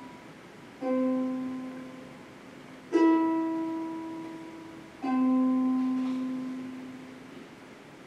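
Sparse music: three single notes plucked on a string instrument, about two seconds apart, each ringing out and fading slowly; the middle note is higher than the other two.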